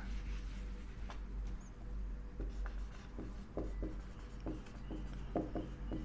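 A felt-tip dry-erase marker squeaks across a whiteboard in a string of short strokes as words are written, after a brief wipe of the board with a duster at the start.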